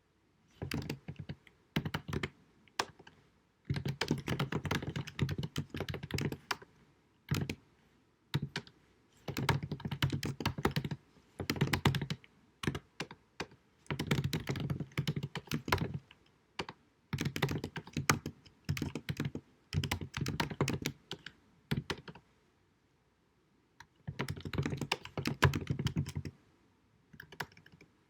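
Computer keyboard typing in runs of rapid keystrokes with short pauses between them, on a deliberately low-quality recording.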